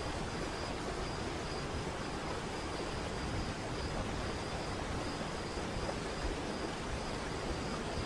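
Large waterfall cascading into a pool: a steady, even rush of falling water.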